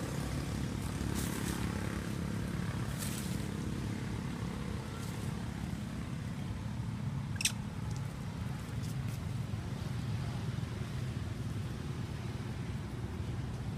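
Steady low rumble of outdoor background noise, with a few faint rustles early on and one sharp, short click about seven seconds in.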